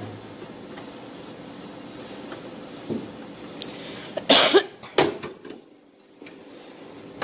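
A person coughing, two short loud coughs about four and five seconds in, over a steady low hum.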